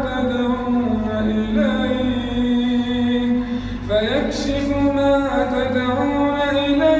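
Male Quran reciter chanting in the melodic tajweed style, drawing out long held notes that step and bend between pitches, with a rising slide about four seconds in.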